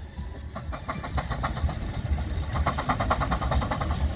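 Steam traction engine working, its exhaust giving two spells of rapid, even beats over a steady low rumble.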